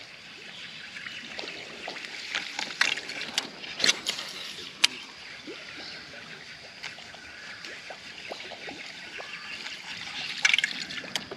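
Water trickling and sloshing around a kayak, with scattered sharp clicks and knocks at irregular intervals.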